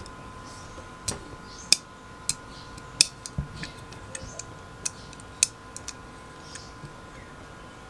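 Vintage Union cylinder nightlatch being worked by hand: a dozen or so sharp, irregular metal clicks as its brass latch bolt and knurled knob are moved back and forth.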